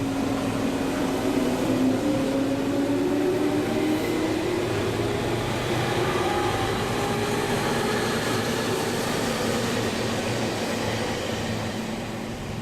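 Electric commuter train pulling away from the platform. The whine of its traction motors rises steadily in pitch over the rumble of the wheels, and the sound fades near the end as the train leaves.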